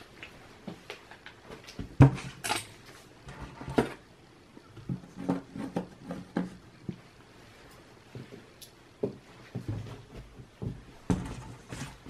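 Scattered light clicks and taps of small screws and a mini screwdriver being handled while a laptop's bottom cover is screwed back on, with a sharper knock about two seconds in.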